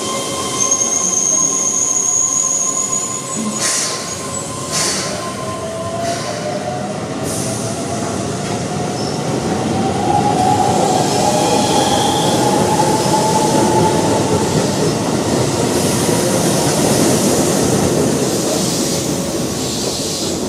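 Keihan 13000 series electric train pulling out: the motor whine rises in pitch as it accelerates, then levels off. A few wheel clacks come early, and a rumble of the passing cars grows louder from about halfway through.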